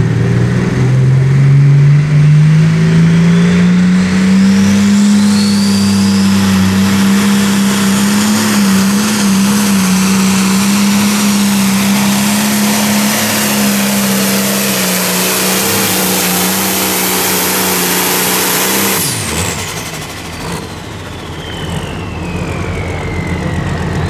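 Turbocharged diesel engine of a New Holland Limited Pro Stock pulling tractor at full power hauling the weight sled. The revs climb over the first few seconds with a rising turbo whine, then hold steady. About nineteen seconds in the engine drops off sharply and the turbo winds down with a falling whistle as the pull ends.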